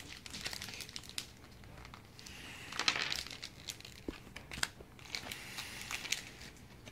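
A foil booster pack crinkling as it is handled and torn open by hand, with a louder stretch of crackling about three seconds in and a couple of sharp clicks just after.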